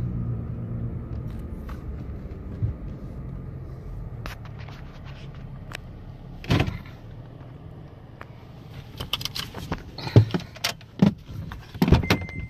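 Low rumble of a car moving slowly, heard from inside the cabin, dying away about halfway through. Then a run of sharp clicks and knocks, and a car's electronic chime starts beeping right at the end.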